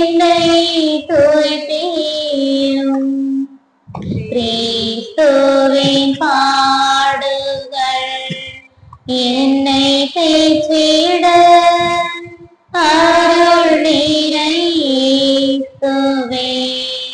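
A high voice, a woman's or a child's, singing a church hymn in long held phrases, with short breaks for breath about every four seconds.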